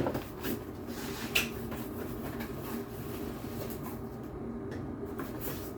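Faint handling sounds of a box being opened: a sharp tap right at the start and a couple of lighter clicks in the first second and a half, over a steady low hum.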